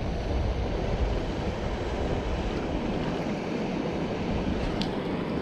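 Steady rushing of fast river water below a waterfall.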